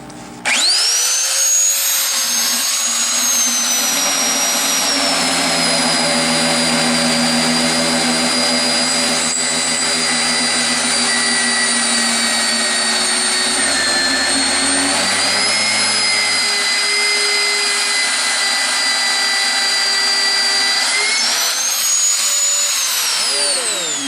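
Electric power saw cutting 1-inch DOM steel tubing into short spacers. The motor's high whine starts abruptly about half a second in, drops in pitch while it is in the cut, and winds down near the end.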